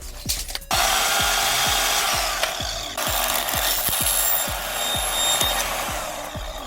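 A power tool running under load, cutting or boring through material, starting about a second in with a short break near the middle, over background music with a steady beat.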